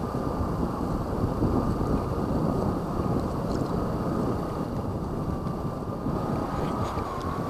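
Gusting wind buffeting the microphone in a steady rumble, with a faint high whine held throughout.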